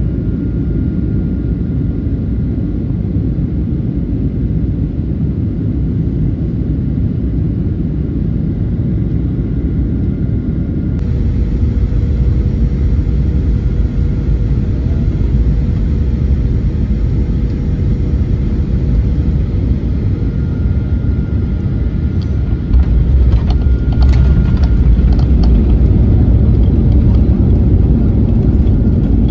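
Airliner cabin noise at a window seat: a steady rumble of engines and airflow on final approach, which turns abruptly louder and deeper about three quarters of the way through, with a few knocks, as the plane touches down and rolls along the runway.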